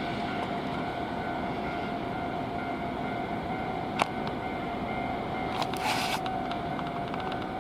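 Electric train running on the line past a level crossing: a steady rumble of wheels on rails with a steady whine. A sharp click comes about four seconds in and a brief hiss near six seconds.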